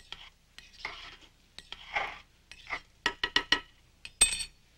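Metal spoon stirring and scraping through cooked elbow macaroni in a metal pot, three scrapes about a second apart. These are followed by a quick run of sharp metal clinks and a louder, ringing clank near the end.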